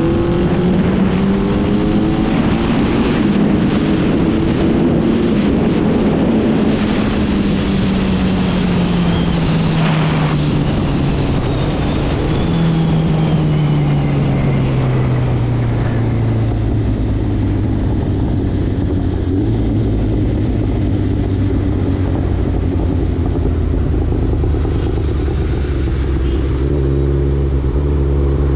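Suzuki Hayabusa Gen3's inline-four engine through an Ixil aftermarket exhaust. It revs up over the first few seconds, then its pitch falls slowly for about ten seconds as the bike slows, and it settles into a low, steady note before rising briefly again near the end.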